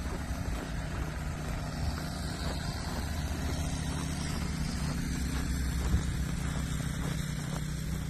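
Footsteps crunching through deep snow, a few soft steps, over a steady low rumble.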